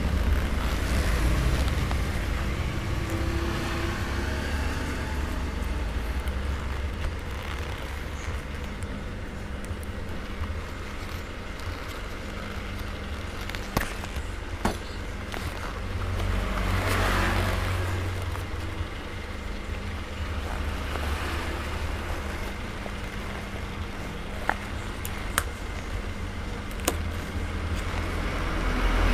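Steady low electric-motor hum of an industrial sewing machine's under-table motor running, with a broader noise that swells and fades a little past halfway and a few light clicks.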